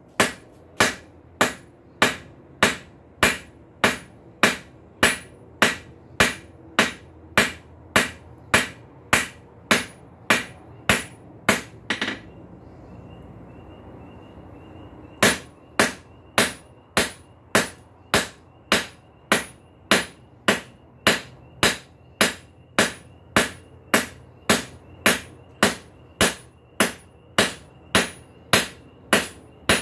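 Hand hammer striking a red-hot high-carbon steel bar on an anvil at about two blows a second, each blow ringing briefly: the bar is being forged square, and the hard steel yields less than mild steel. The blows pause for about three seconds midway, leaving only a faint steady high tone.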